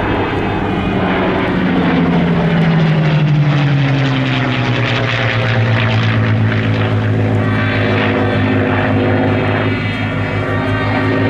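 Piston engines of two propeller fighters flying overhead in formation: a steady engine drone that falls in pitch over the first few seconds, then holds steady.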